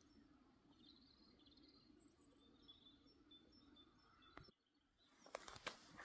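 Faint forest ambience with small birds calling: a short high chirp repeated about twice a second and a couple of brief trills. Near the end, footsteps on the forest floor start up.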